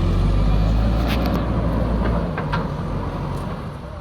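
Backhoe loader's diesel engine working hard, louder for the first two seconds and then easing off, with a few short metallic knocks.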